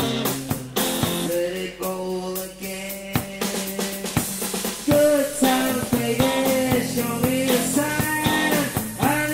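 Rock band rehearsal recording, with the drum kit to the fore: kick, snare and rimshots over bass and pitched instrument lines, the playing picking up about five seconds in.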